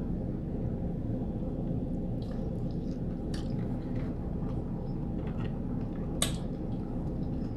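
Person chewing a mouthful of shrimp and grits: soft, scattered wet clicks and smacks, with one sharper click about six seconds in, over a steady low room hum.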